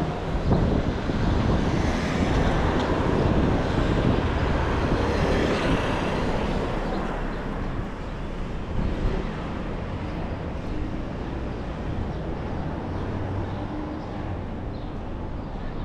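City street traffic: a vehicle passes, loudest in the first several seconds and easing off after about seven seconds, over a steady traffic rumble.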